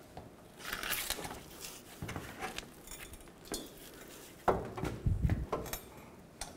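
Scattered metallic clinks and knocks as a front differential housing is shifted by hand on a transmission jack, with a brief scraping rustle about a second in and a few heavier clunks a little past halfway.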